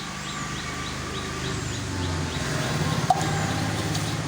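A vehicle engine runs with a steady low hum that grows louder through the middle, with a single sharp click about three seconds in. Faint bird chirps are heard.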